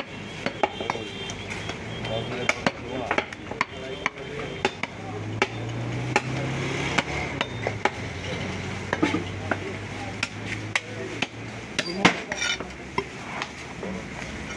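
A large butcher's knife cutting beef on a wooden tree-trunk chopping block: sharp, irregular knocks of the blade on the wood, several a second, with scraping between them.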